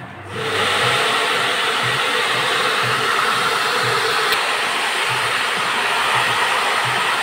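Hand-held hair dryer with a diffuser attachment blowing on wet, curled hair: a steady rushing blow that starts about half a second in and holds at an even level.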